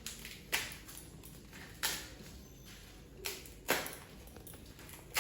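Husks being torn off an ear of corn by hand: a series of short, dry rips, one every second or so, each fading quickly.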